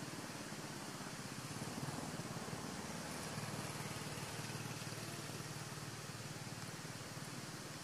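A steady low engine hum, like a small engine idling, over a steady hiss; the hum fades out near the end.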